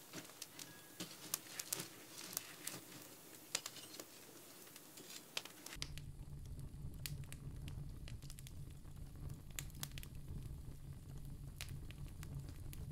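Wood fire crackling in the firebox of a temazcal sweat lodge, with sharp pops scattered throughout. About six seconds in, a low steady rumble joins the crackling.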